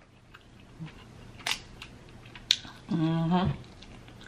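A person eating snow crab legs close to the microphone: two sharp clicks about a second apart, then a short hummed "mmm" of approval.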